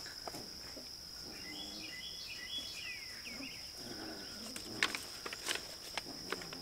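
Outdoor ambience: a steady high-pitched insect drone with a few bird chirps, and some light clicks and rustles of handling in the last couple of seconds.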